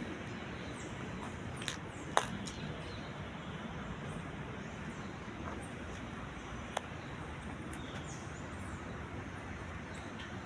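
Steady hum of city traffic with faint, high bird chirps over it, and a few sharp clicks, the loudest about two seconds in.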